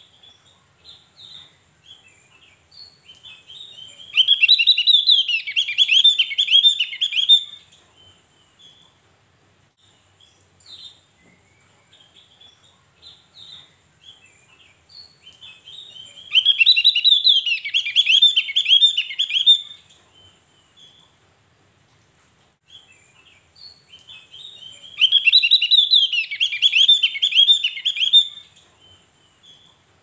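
Javan grey-throated white-eye (opior Jawa) singing: three fast, high warbling phrases of about three seconds each, with soft single chirps in between.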